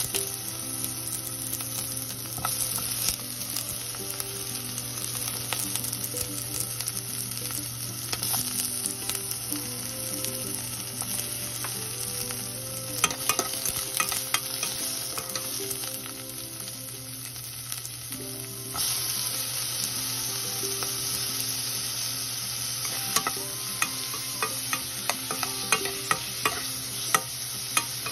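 Sliced onions sautéing in hot oil in a non-stick pot, a steady sizzle, stirred with a metal spoon that clicks and scrapes against the pot. The sizzle gets louder about two-thirds of the way in, and a run of sharp spoon taps comes near the end.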